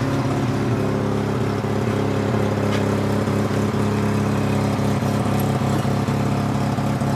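A motor vehicle engine running steadily at an even, unchanging speed, as at idle.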